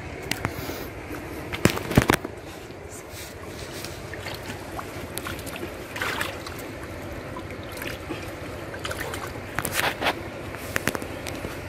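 Water splashing and dripping as a wet cast net is hauled out of shallow river water and the fisherman's feet move in it, with a few sharper splashes, the loudest about two seconds in and others near the middle and near the end, over a steady background hiss.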